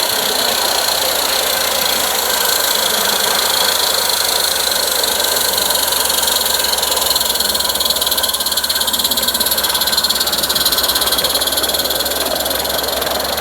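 Small 16mm-scale live steam locomotive running, a steady hiss of steam with a rapid, even beat of exhaust.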